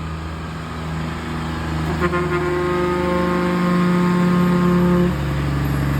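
A truck horn sounding one steady blast of about three seconds, starting about two seconds in, over the steady low hum of a truck's engine.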